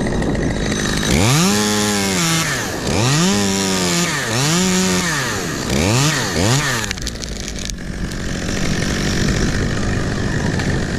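Chainsaw revved up and let back down five times in a row, the last two blips short, over a steady engine drone.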